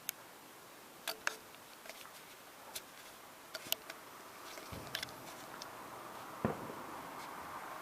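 Distant fireworks: scattered sharp pops and crackles, with two dull booms about five and six and a half seconds in.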